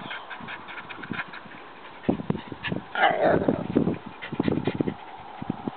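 Dog whining and panting: a loud, short falling cry just after three seconds in, with clusters of quick low puffs before and after it.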